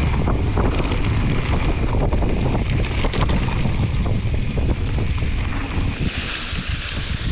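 Wind buffeting the microphone of a camera riding on a mountain bike, a heavy low rumble with scattered knocks and rattles from the bike. A higher hiss joins about six seconds in.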